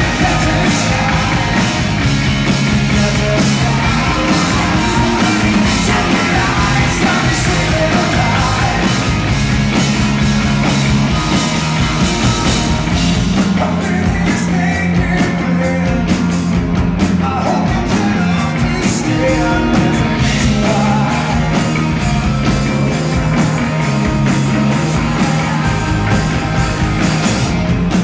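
Live rock band playing loud and steady: a male lead singer singing into a microphone over drums and amplified guitar. It is heard through the PA from the audience.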